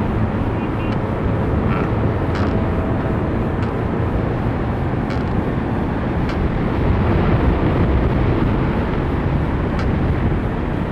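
Steady, loud wind rush over the microphone of a wing-mounted camera on a hang glider in flight, with a few faint ticks.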